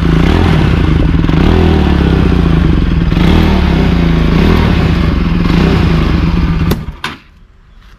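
Bajaj Pulsar NS200's single-cylinder engine running loudly through an underbelly silencer whose inner pipe has been cut short, with a few quick rises and falls in revs early on. The sound cuts off suddenly about seven seconds in.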